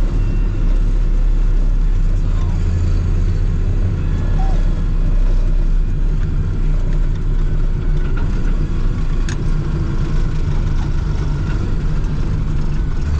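Farm tractor's diesel engine running steadily under way at road speed, heard from inside the cab, with one brief click about nine seconds in.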